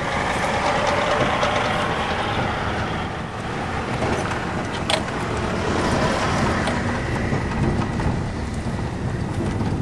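Steady road and engine noise heard from inside a vehicle's cabin while it drives on a dirt road, with a sharp click about five seconds in.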